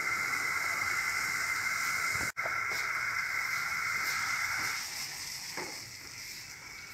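Milk tea boiling and frothing in a steel saucepan: a steady hiss of bubbling that breaks off for an instant about two seconds in and fades about five seconds in.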